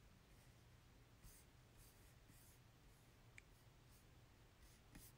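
Near silence: room tone with a few faint, brief rustles.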